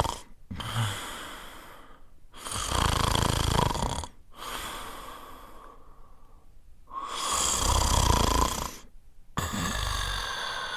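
French Spaniel snoring in its sleep: a loud snoring breath about every four to five seconds, each followed by a quieter breath.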